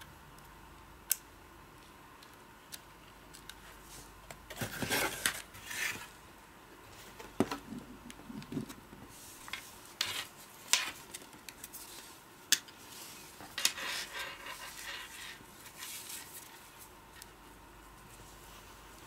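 Unpacking noises from a Sony a5100 mirrorless camera and its packaging: scattered sharp clicks and knocks as the camera is handled and set down, with spells of rustling, the longest near the end.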